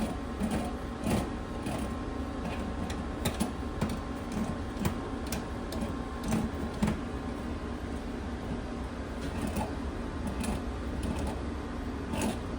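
Light, scattered clicks and taps of a plastic CPVC fitting and hand tools being handled and threaded, over a steady mechanical hum.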